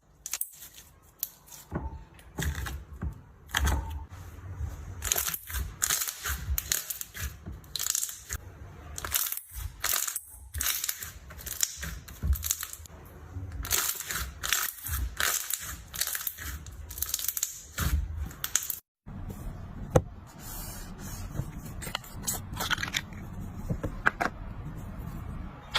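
Slime being squeezed and poked by hand, giving a run of irregular crackling, popping and squishing strokes. About three-quarters of the way through, the sound drops out for a moment and then carries on more faintly over a steady low hum.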